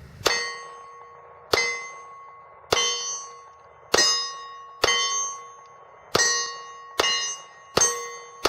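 Eight shots from a .40-calibre SIG SP2022 pistol, a bit more than one a second, each answered by the bell-like ring of a struck steel target plate that fades before the next shot.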